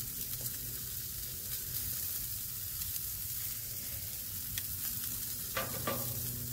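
Chicken gizzards and Italian sausages sizzling on a charcoal grill grate, a steady hiss with scattered faint crackles, as the meat nears doneness.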